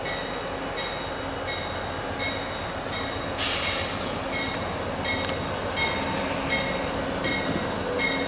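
F40 locomotive's electronic bell (E-bell) ringing steadily, about three dings every two seconds, over the rumble of the moving train. A short hiss breaks in about three and a half seconds in.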